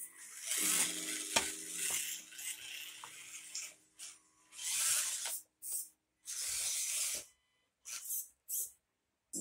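Axial SCX24 micro crawler driving over rocks in short bursts of throttle: a hissy whir from its small motor and gears, with tyres scrabbling on rock, stopping and starting several times.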